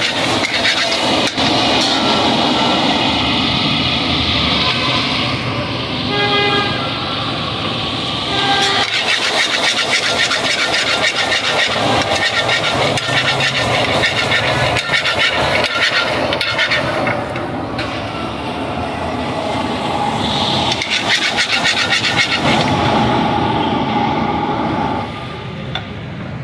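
Stir-frying over a high-flame gas burner: a steady rush of burner flame and frying under a metal ladle that repeatedly scrapes and clanks against the steel pan.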